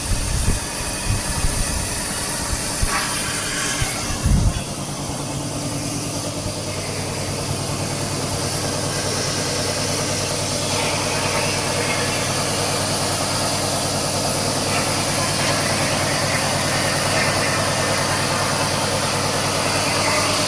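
CNC plasma cutter working through 8 mm mild steel: a steady hiss of the air plasma arc over a constant hum. It opens with a few irregular low thumps in the first four seconds or so.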